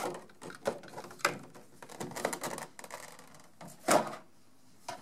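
Hand handling of product packaging: a clear plastic tray crinkling and rustling as it is lifted out of a cardboard box, with light knocks of plastic parts. A louder burst of handling noise comes about four seconds in.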